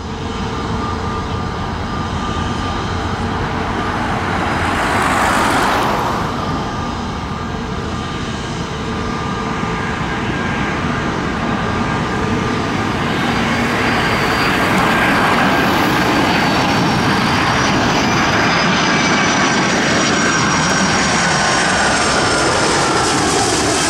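Jet engines of a Boeing 757-224 on final approach: a steady jet rumble with faint whine tones that grows gradually louder as the airliner nears, with a brief swell about five seconds in.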